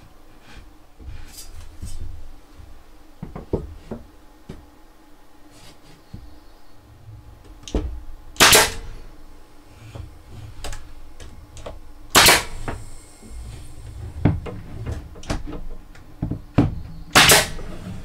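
Knocks and thuds of wooden cupboard panels being handled and fitted together during assembly, with three louder sharp bangs spread through.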